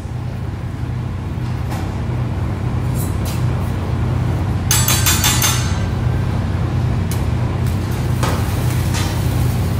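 Metal spatula clinking and scraping on a steel hibachi flat-top griddle, with scattered taps and one loud, harsh scrape about five seconds in lasting about a second. A steady low hum runs underneath.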